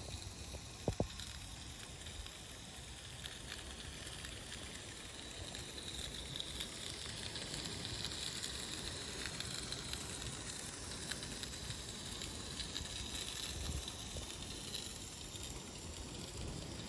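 Small live-steam model locomotive running past, its exhaust hissing steadily, louder as it comes closest and fading as it draws away. There are two sharp clicks about a second in.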